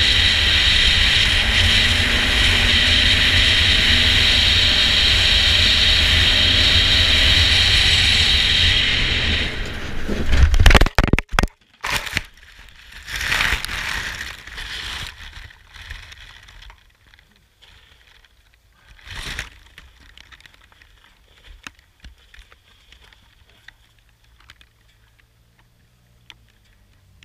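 Quad bike (ATV) riding fast along a dirt track, engine and wind noise steady, then about ten seconds in it crashes: a run of loud impacts and scraping, a few more thuds, and after that only faint rustling of brush with the machine stopped.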